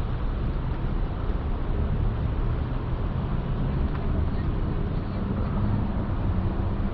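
Steady low engine rumble with a constant low hum that comes in about two seconds in.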